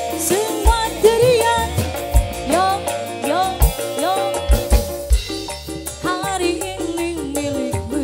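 Live dangdut music: a sung melody that bends and slides in pitch, over deep hand-drum strokes, percussion and steady held accompaniment tones.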